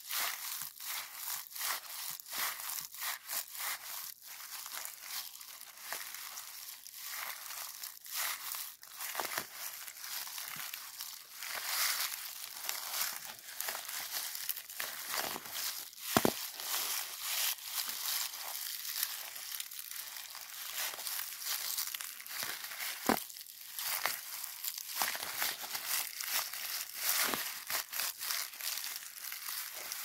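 Close-up crinkling and crushing of a white sheet squeezed in the hand around a twisted metal spinner rod: a dense, continuous crackle. There are two sharp clicks, one about halfway through and one later.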